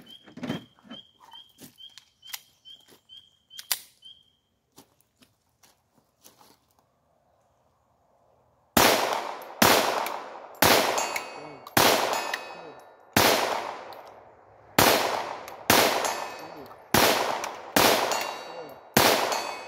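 A Ruger Mark IV .22 LR pistol fired about ten times at a slow, even pace, roughly one shot a second, starting about nine seconds in, with a faint ring from the distant steel target after some of the shots. Before that, a run of light clicks as the pistol is handled.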